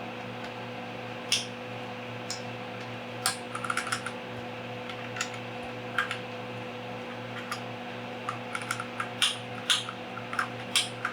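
Irregular clicks and clacks of keycaps being pressed down onto the Akko Jelly Black switches of a Keychron Q5 mechanical keyboard, sparse at first and coming faster near the end. A steady low hum runs underneath.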